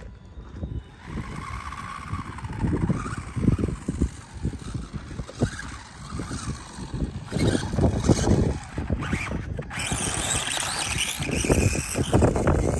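Gusty wind on the microphone, over which the electric motor of a SkyRC SR5 1/4-scale RC dirt bike whines faintly, rising and falling in pitch as the bike speeds up and slows through turns. About ten seconds in, a louder, even rushing noise takes over.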